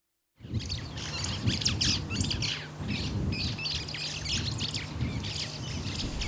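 Small birds chirping in quick, repeated calls over an outdoor field ambience with a steady low hum underneath, cutting in suddenly about half a second in after silence.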